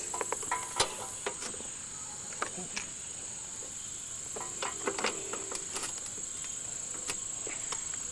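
Steady high-pitched cricket chorus, with scattered clicks and light clanks of hands working at a garden tractor's battery wiring; the engine is not running.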